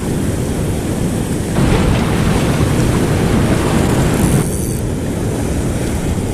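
Wind buffeting the microphone, a steady low rumbling rush, over surf washing on the rocks; it grows a little louder about a second and a half in.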